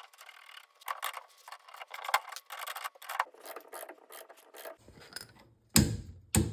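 Ratchet wrench clicking in short irregular strokes while the castle nut is run back onto the Beetle's rear axle, followed near the end by two loud metallic knocks.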